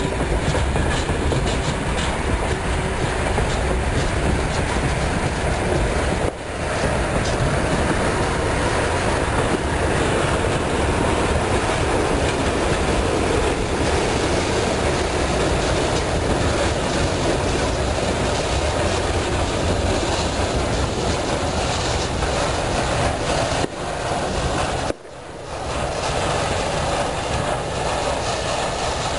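Freight train wagons rolling past steadily, with the clickety-clack of wheels over rail joints. The sound dips briefly twice.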